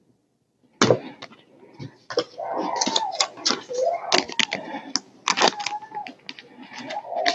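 Foil trading-card pack wrappers being torn and crinkled, and cards being handled, with sharp crackles and rustling starting about a second in.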